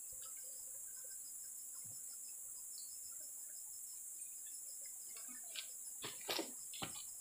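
A steady, high-pitched insect chorus, with a few faint rustles and taps near the end.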